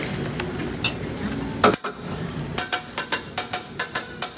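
Hibachi chef's metal spatulas clacking on the steel griddle: a steady hiss of food frying, one sharp knock about halfway through, then a quick run of ringing metal strikes, about five a second, near the end.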